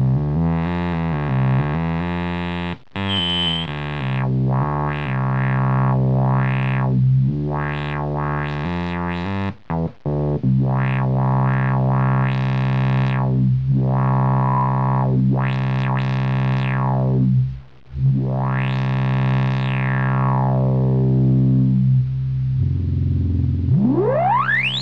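LushOne synthesizer playing low sawtooth notes through its resonant filter, the cutoff and resonance turned together, so the tone repeatedly sweeps bright and back to dull. A few quick note changes come in the first few seconds. Near the end a high whistling tone glides quickly upward.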